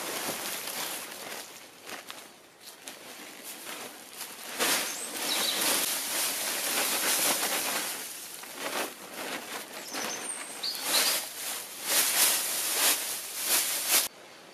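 Repeated rustling and crunching of a nylon tarp and dry brush being handled and pushed onto a pile of branches, with footsteps in leaf litter; the rustling comes in loud irregular bursts and stops suddenly near the end.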